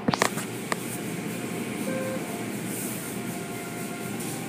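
Automatic tunnel car wash running: soft-cloth brushes and hanging cloth curtains sweep over a vehicle under water spray, making a steady rushing noise. A few short knocks come in the first second.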